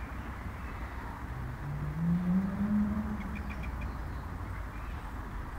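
Outdoor ambience: a steady low rumble with a low hum that rises in pitch between about one and three seconds in, then fades. Four quick high bird chirps come just after three seconds.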